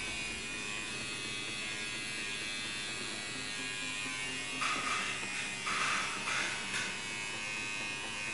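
Electric tattoo machine buzzing steadily, with two short bursts of hiss about halfway through.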